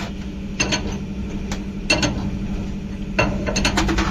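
Irregular metallic clicks and clinks, in small clusters, from spanners and tools working the nuts and bolts of a truck's leaf-spring mounting, over a steady low hum.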